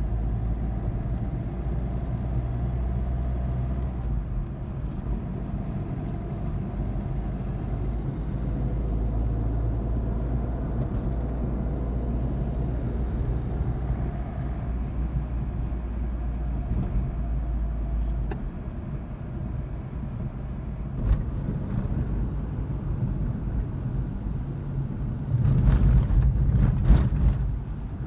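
Car cabin noise while driving on an open road: a steady low rumble of tyres and engine, with no hum from the newly replaced rear wheel bearing, meaning the fault is cured. A louder rush of noise for about two seconds near the end.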